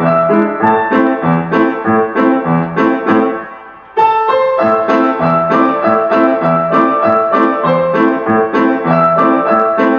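Grand piano played four hands: an evenly paced run of notes that dies away about three and a half seconds in, then starts again with a fresh phrase.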